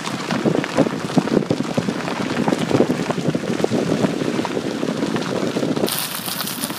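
Car tyres rolling slowly over a dirt road, a dense steady crackle of crunching grit heard through an open window, with a hiss of wind joining near the end.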